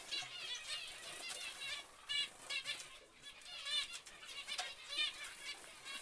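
Zebra finches calling: a busy chatter of short, repeated calls from several birds overlapping.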